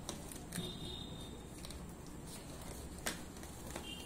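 Packing tape being peeled off a cardboard box and the cardboard flaps pulled open: scattered crackles and rustles, with one sharper crack about three seconds in.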